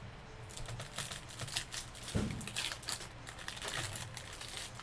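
Trading cards and plastic card sleeves or pack wrappers being handled, rustling and crinkling in quick irregular bursts, with a soft thump about two seconds in.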